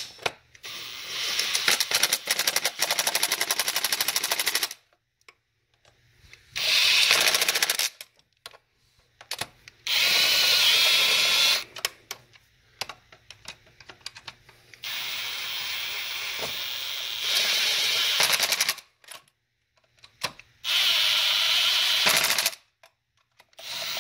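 A power tool runs down the bolts of a new engine oil cooler with a fast, rattling run. It goes in about six bursts of one to four seconds each, with short pauses between.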